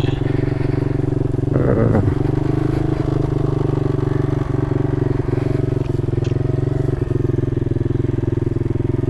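Grom-clone mini motorcycle's small engine idling steadily, its pitch not changing.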